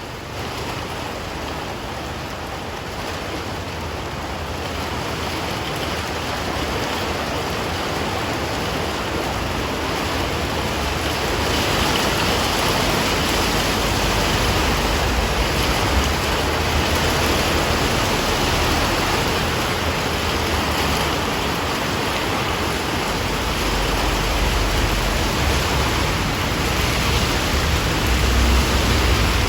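Heavy rain pouring down, a dense, even hiss that grows slightly louder over the first dozen seconds. A low rumble joins in for the last several seconds.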